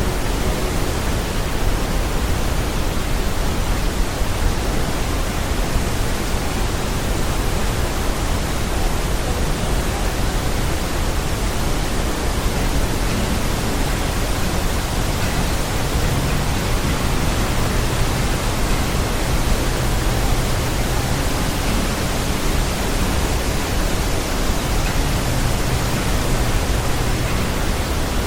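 Waterfall roar of the Iguazú Falls cascades: a loud, even rushing noise that holds steady without a break.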